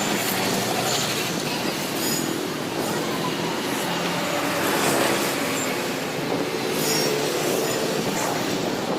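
A train moving along the track: steady wheel-on-rail running noise, with brief high-pitched squeals now and then.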